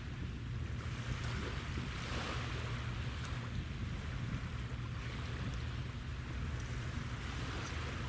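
Steady low drone of a naval ship's engines carrying across the water, under the wash of small waves and some wind noise.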